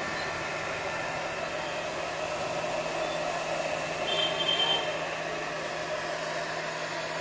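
Electric blower attachment of a VERX VMB-1601 battery backpack sprayer running steadily, a fan whine over a rush of air as it blasts out spray mist. A brief higher-pitched tone sounds over it about four seconds in.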